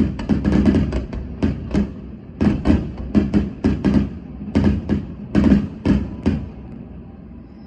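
A rapid, irregular run of sharp bangs and thuds in clusters, fading away about seven seconds in.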